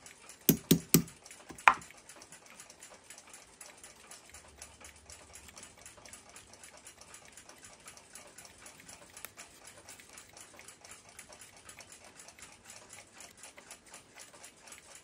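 A few sharp metallic clicks in the first two seconds as the old brass bushing is pressed out of the clock plate in a bushing tool, followed by faint, rapid ticking.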